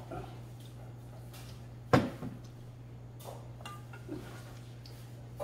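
Tableware sounds: one sharp knock about two seconds in, then a few light clicks of metal chopsticks stirring in a stainless-steel bowl. A steady low hum runs underneath.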